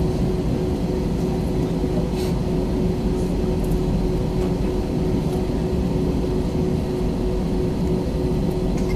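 Steady cabin drone of an Airbus A321-231's IAE V2500 turbofans at ground idle, heard from a window seat over the wing: a deep rumble with a constant whine on top.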